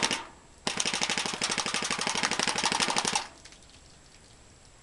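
Airsoft mini Uzi firing on full auto: a short burst at the very start, then a longer burst of rapid, even shots that stops about three seconds in.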